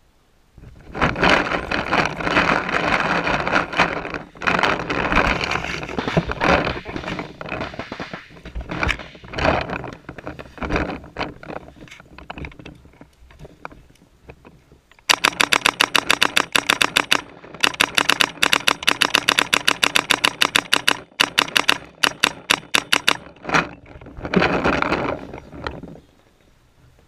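Macdev Droid electronic paintball marker firing in rapid strings of about ten shots a second, in runs from about halfway in until a few seconds before the end. Before that, a dense, irregular clatter of paintball fire.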